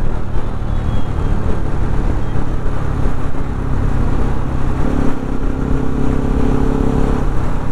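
Riding a motorcycle in traffic: wind buffeting the rider's camera microphone over the motorcycle's running engine and the traffic around it. A steady hum joins in about three seconds in and stops near the end.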